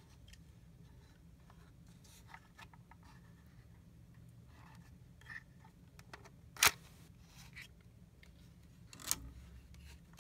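A Polaroid CB-72 instant film back being handled: small plastic clicks and light scraping, then a sharp snap about two-thirds of the way in and a second, softer click near the end.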